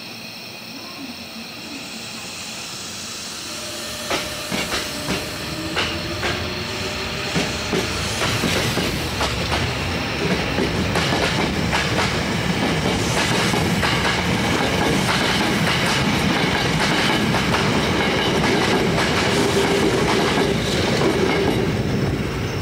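Hankyu 8000 series electric train, its traction inverter updated to IGBT, pulling out and accelerating past. About four seconds in, a motor whine starts and rises in pitch over growing clatter of wheels on rail joints. The train gets steadily louder into a sustained rumble as it runs by.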